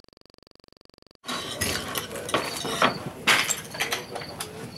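Near silence, then from about a second in, roofing slates clinking and knocking sharply against each other as they are handled and set in place along a hip, with crickets chirping in the background.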